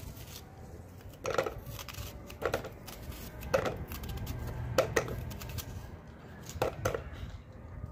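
Kitchen knife cutting a red onion held in the hand over a plastic bowl, with cut pieces dropping in: about seven short, sharp knocks at uneven intervals.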